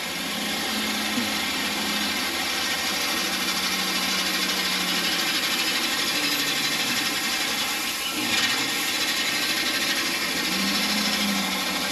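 Gravel spreader truck at work: its engine and the conveyor and spinner feeding stone out of the hopper run steadily, over a continuous hiss of crushed gravel spraying onto the ground.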